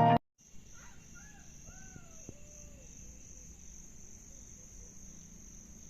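Background music cuts off at the start, then crickets trill steadily at a high pitch, with a few short rising-and-falling bird calls in the first couple of seconds.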